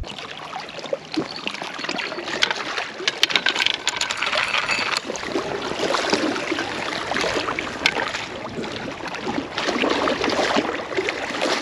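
Water sloshing and splashing among breakwater rocks at the lake's edge, with scattered clicks and scrapes of someone clambering over the rocks, the clicks thickest a few seconds in.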